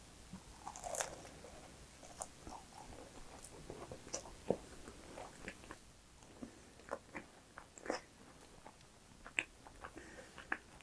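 A macaron being bitten and chewed close to a clip-on microphone: crisp bites through the shell and soft chewing, with scattered small crunches and mouth clicks.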